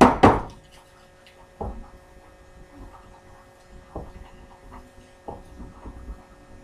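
Cold butter being grated on a metal box grater that stands on a wooden cutting board: two loud scraping strokes at the start, then a few softer knocks of the grater on the board every second or two, over a steady faint hum.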